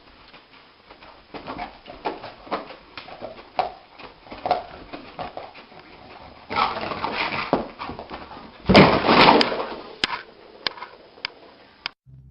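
A dog whimpering and yipping in a string of short, sharp sounds, with a louder, noisier outburst about nine seconds in.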